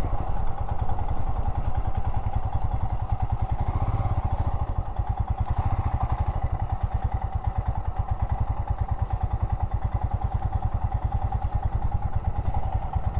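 Royal Enfield Himalayan's single-cylinder engine running at low revs with a steady, even beat.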